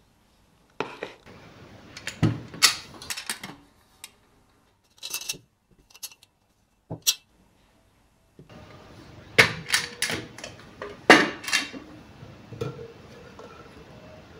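Stainless steel momo steamer pans and tiers being handled and stacked: sharp metal clanks and rattles in several bursts with short pauses, busiest in the second half.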